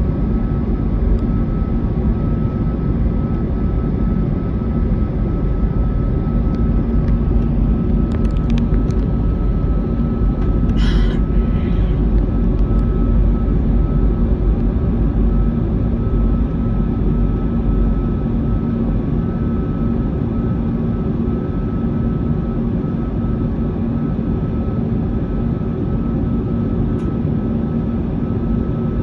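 Jet aircraft engine noise: a steady, loud low rumble with a constant hum, and a brief higher sound about eleven seconds in.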